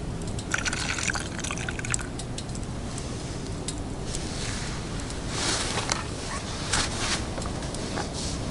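Liquid being poured in a few short spells over a steady low rumble.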